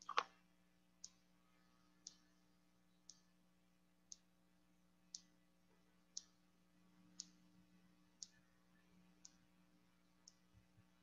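Near silence broken by faint, regular ticks, about one a second, with one louder click just after the start.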